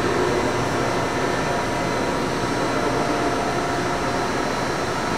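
Steady, even room-tone hiss with a faint steady hum, like a large hall's ventilation picked up by the camera microphone. There are no distinct events.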